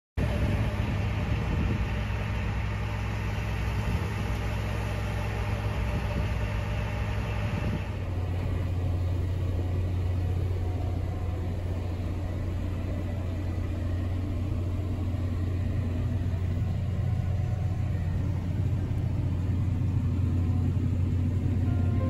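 Farm machinery running steadily, then, after an abrupt change about eight seconds in, a tractor's steady low engine drone heard from inside the cab while it pulls a round baler picking up straw.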